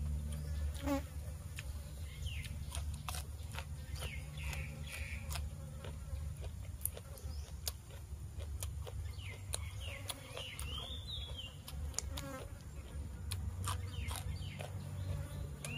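A person chewing raw vegetables close to the microphone, with frequent crisp clicks and crunches. Under it runs a steady low buzzing hum, and a few short high chirps come and go.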